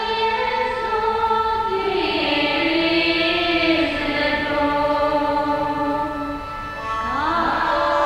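Slow contemporary chamber music with live electronics: layered held tones that shift slowly and step in pitch, with an upward slide near the end.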